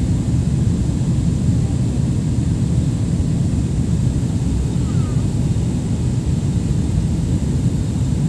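Steady low rumble of airliner cabin noise, the jet engines and airflow over the fuselage heard from a window seat during the descent.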